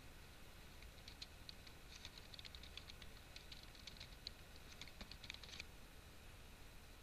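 Faint typing on a computer keyboard: a quick run of key clicks starting about a second in and stopping a little past halfway.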